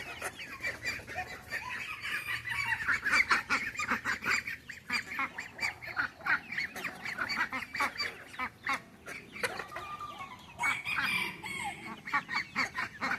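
A flock of ducks and chickens calling, many short overlapping calls packed closely together.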